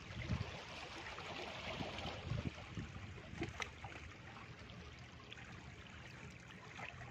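Small waves washing against the rocks of a seawall: a steady hiss of moving water, with a few faint knocks.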